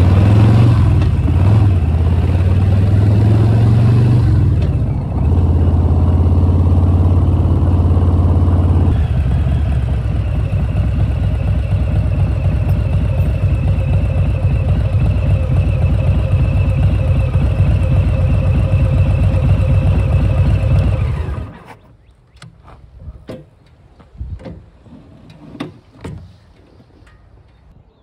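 2019 Harley-Davidson Softail Standard's Milwaukee-Eight V-twin running while being ridden, its note changing about 5 and again about 9 seconds in. The engine sound cuts off suddenly about three quarters of the way through, leaving only faint scattered ticks.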